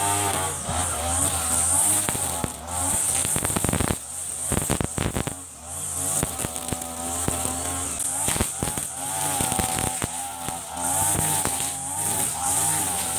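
Mitsubishi TU33 33 cc two-stroke backpack brush cutter running while cutting grass, its revs rising and falling with the throttle. Sharp crackles come in a stretch about four to six seconds in, as the revs drop.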